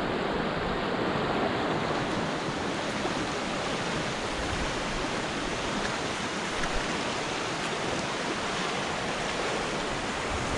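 Shallow river running over low rock ledges and small rapids: a steady rush of water.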